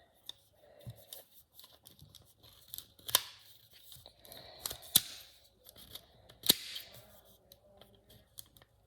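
Plastic puzzle-ball fidget toy being handled, its pieces clicking as they are pulled apart and fitted together, with three sharp snaps about three, five and six and a half seconds in.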